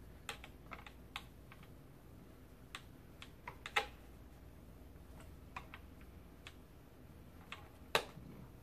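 Scattered, irregular light clicks and knocks of hard plastic and metal rocker-frame parts being handled and fitted together, with two louder knocks, one about midway and one near the end.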